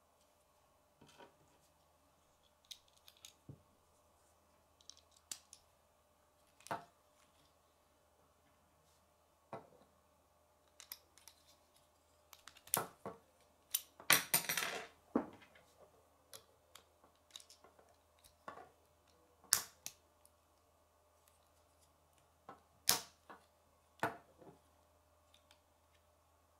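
Plastic K'nex pieces clicking and snapping as they are fitted together by hand: scattered single clicks, with a denser stretch of plastic clattering about halfway through.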